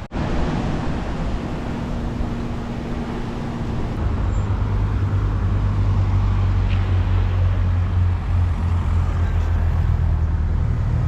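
Motor vehicle engine running with road noise; a steady low engine hum comes in strongly about four seconds in and holds.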